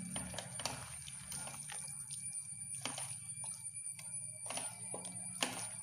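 A spoon knocking and scraping against a cooking pan in irregular strokes as chicken and green plantain pieces are stirred together, over a steady low hum.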